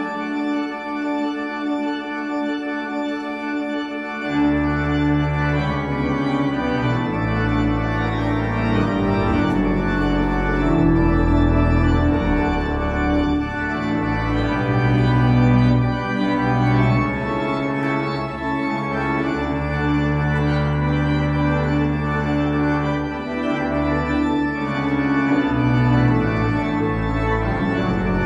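Church organ playing a postlude: full sustained chords on the manuals, joined about four seconds in by deep pedal bass notes that carry on underneath.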